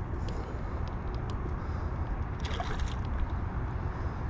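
A hooked shaari (emperor fish) splashing and thrashing at the water's surface, with a few small splashes early and one larger splash about two and a half seconds in, over a steady low rumble.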